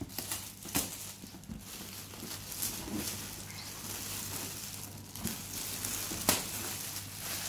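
Metallic foil gift wrap crinkling and tearing as a boxed toy is unwrapped, with sharper crackles about a second in and around five and six seconds in.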